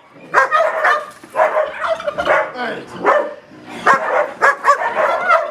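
Dogs being trained as guard dogs barking aggressively, many short barks in quick succession. The barking thickens into a dense run in the second half.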